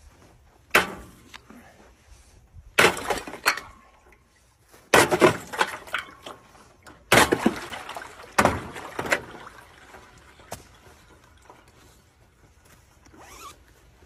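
Ice on a galvanized stock tank being chopped through with a hand tool: about six sharp cracking blows over nine seconds, with splashing water and the clink of broken ice after the later ones.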